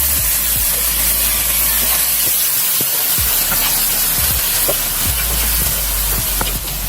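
Food sizzling in a hot pot: a steady, loud hiss with a few faint clicks.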